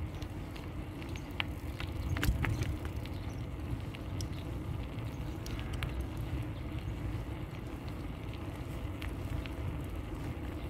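A bicycle rolling along a paved path: steady low rumble of tyres and wind, with scattered small clicks and rattles, a little louder about two seconds in.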